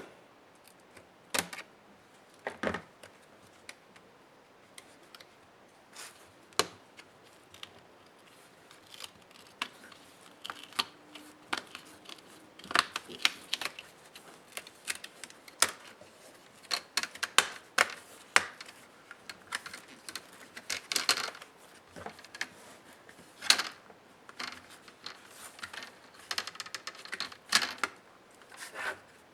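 Small sharp clicks, taps and clatter of laptop plastic and metal parts and small tools being handled during disassembly; sparse at first, then coming thick and fast.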